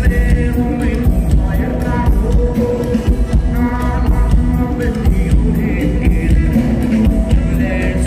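Live rock band playing loudly through a stage PA: electric guitars over a drum kit, with singing at times.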